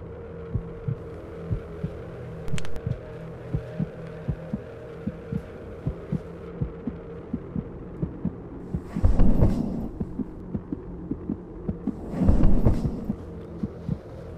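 A heartbeat sound effect thumping steadily over a low, steady droning hum. Two louder swelling rushes of sound rise up about nine seconds in and again about three seconds later.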